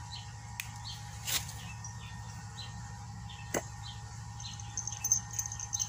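Small birds chirping in the background, with a faster high-pitched run of chirps in the second half. Two sharp clicks, about a second in and again past the middle, come from the small plastic flea-medicine tube being opened.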